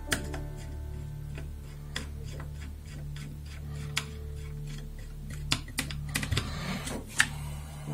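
Scattered small plastic clicks and taps as hands handle an Eaglemoss Spy Robot's circuit board, wire connectors and plastic shell, with a cluster of clicks near the end. Soft background music with a low steady drone runs underneath.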